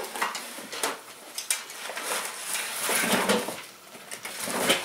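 Metal tabletop of a Uniflame bonfire table slid into its fabric carrying case: fabric rustling and scraping with several light metal knocks and clinks.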